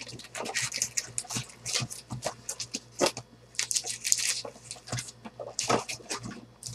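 Wrapped trading-card packs and the cardboard of a 2014 Panini Prestige football hobby box rustling and crinkling as the packs are pulled out by hand and stacked, a quick, irregular run of crackles and light taps.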